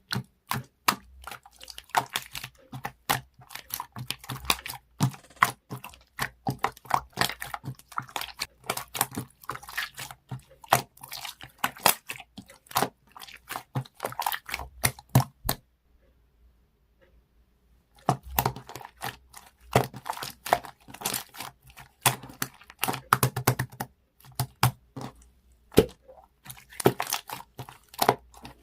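Slime being squished and stretched by hand, making rapid sticky clicks and pops. It stops for about two seconds in the middle, then starts again.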